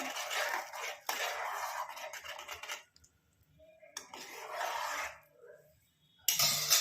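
Metal spoon scraping and stirring in a kadai, in stretches of a second or two with short pauses, and a brief louder clink or scrape near the end.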